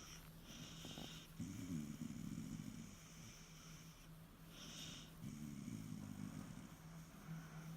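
Irish terrier snoring quietly in slow breaths, two long snores about four seconds apart, a contented snore.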